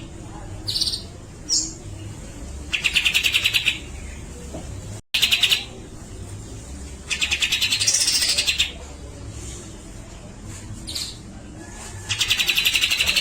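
Cucak jenggot (grey-cheeked bulbul) singing rapid, stuttering rattling phrases, the 'besetan' of this bird's song. There are four of these bursts, each lasting a second or two, with short single call notes between them.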